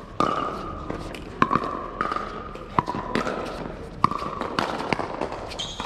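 A fast pickleball rally: paddles strike the hollow plastic ball with sharp pops, about one every half second to second, each leaving a short ring.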